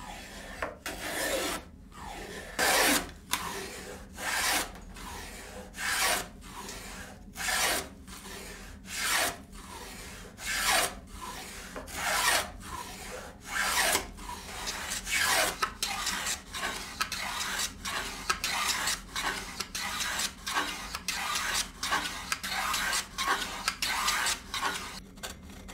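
Wooden rebate plane (feuilleret) cutting a rebate along the edge of a board by hand, stroke after stroke of the blade shearing wood. The strokes come about one every second and a half, then from about halfway turn shorter and a little faster, slightly more than one a second.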